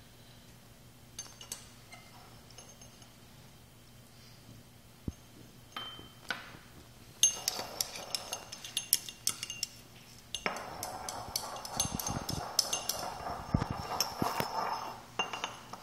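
Porcelain pestle stirring and clinking against a porcelain mortar while mixing wet calamine lotion paste. It is quiet with a few scattered clicks at first, then from about seven seconds in becomes a steady run of rapid clinks and scraping.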